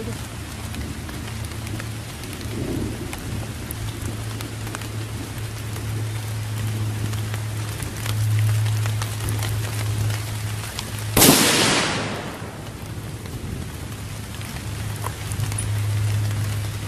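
Steady rain falling, over a low steady hum. About eleven seconds in comes a single loud 6mm Creedmoor bolt-action rifle shot, and its report rings off briefly. The round is a near-max handload being tested in the rain for overpressure, and the shooter reports a popped primer right after.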